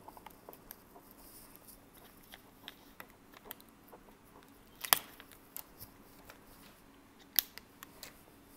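Small clicks and crackles of fingers peeling the backing sticker off the adhesive strip along the bottom edge of an iMac's chassis, with two sharp snaps, one about halfway through and one near the end.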